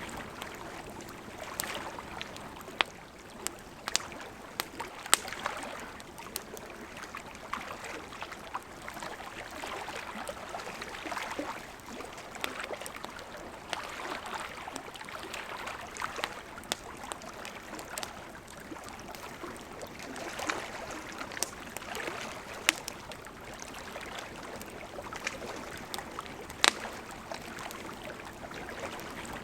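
Campfire crackling and popping with irregular sharp snaps, over a steady wash of lapping lake water.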